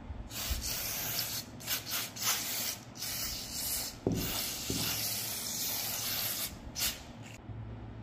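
Aerosol spray hissing out of a red extension straw onto rusted AK-47 parts in a series of short sprays with brief pauses, stopping about a second before the end.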